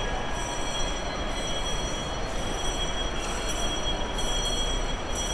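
Steady ambient noise of a large shopping-mall hall: a constant hiss and low rumble with faint, steady high-pitched whining tones, no single sound standing out.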